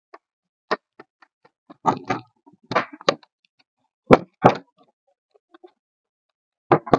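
Irregular knocks and clatter from an insulating panel being pushed into place over the circuit board inside a Hypertherm Powermax 30 XP plasma cutter's case, and from the case being handled. There are a dozen or so separate sharp knocks; the loudest two come a little after four seconds in, and another cluster comes near the end.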